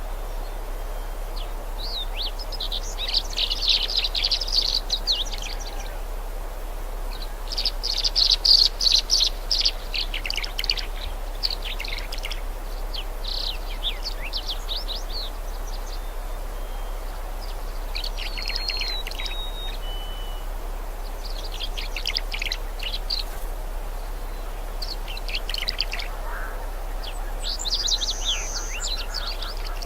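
Songbirds singing in short bursts of rapid high chirps and trills, a new phrase every few seconds, over a steady faint background hiss.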